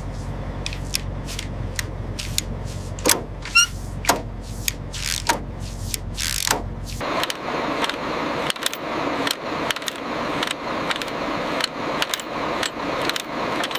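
A heavy machine's steady low hum, which stops about seven seconds in, with metal chains clinking and rattling throughout as a load is chained down.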